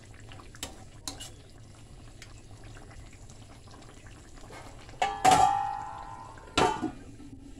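A metal ladle clinking faintly against a stainless steel pan of stew, then about five seconds in a loud metallic clang that rings out for about a second, followed by a second sharp knock.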